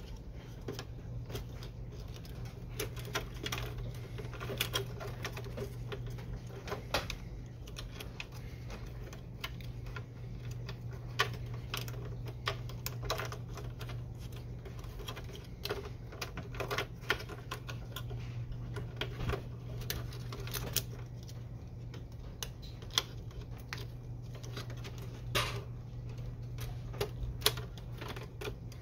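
Irregular light clicks and taps of plastic as flat ribbon cables and connectors are handled and pressed into place inside an opened Canon Pixma MG6820 printer, over a steady low hum.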